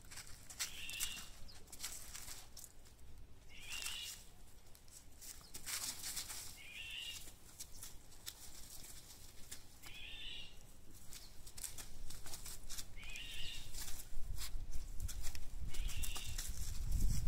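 Entlebucher puppies rustling and scratching through bark mulch and leafy plants, a patter of small scuffs and crackles. A short high chirp repeats about every three seconds, and a low rumbling comes in near the end.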